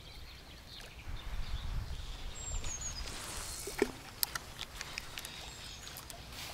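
A spinning reel and rod being handled: several sharp clicks in the second half, over a low outdoor rumble, with a brief high bird chirp about two and a half seconds in.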